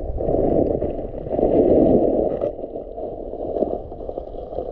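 Muffled sloshing and gurgling of creek water, heard with the microphone at or under the surface as a bass is released underwater. It swells loudest twice in the first two and a half seconds, then settles to a lower churn.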